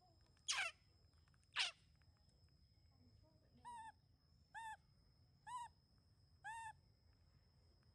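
Animal calls: two sharp squeaks that sweep steeply down in pitch, a second apart, followed by four clear, evenly spaced coo-like calls about one a second.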